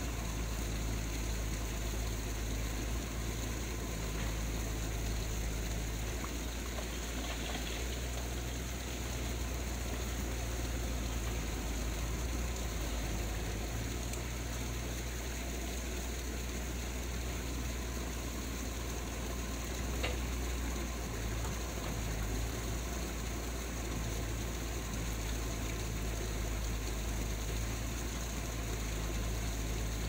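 Fast, muddy stream water rushing over rocks: a steady rush with a deep rumble underneath, and one brief tick about two-thirds of the way in.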